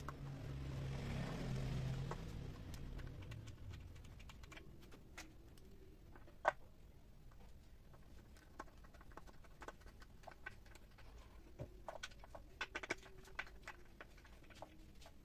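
Hand screwdriver driving screws through a hinge bracket into a rubberwood table top: scattered small clicks and ticks, with one sharp click about six and a half seconds in and a quick run of clicks near the end. In the first three seconds a low hum and rushing noise swells and fades.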